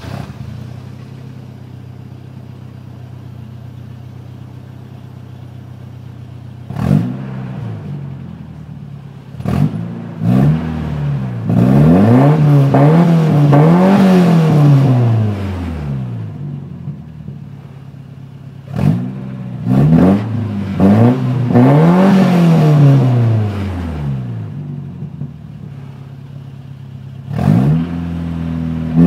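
1994 Toyota pickup's engine through its aftermarket exhaust, heard near the tailpipe: idling steadily, then revved in quick blips about seven to ten seconds in, held up with the pitch rising and falling, dropping back to idle, and revved again the same way in the second half with a last blip near the end.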